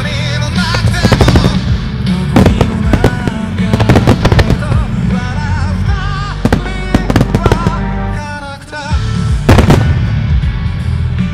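Fireworks shells bursting with repeated sharp bangs over the loud song that the music starmine is fired to. The bangs come in clusters, with a short lull about eight and a half seconds in, then a tight group of bangs as a big wide volley goes up.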